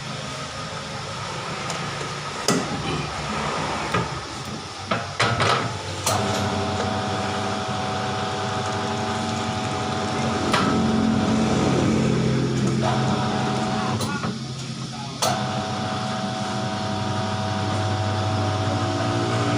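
A tyre-changer machine's motor runs in spells with a steady hum, stopping and restarting twice, amid sharp metallic clicks and knocks as a car tyre is worked onto its rim.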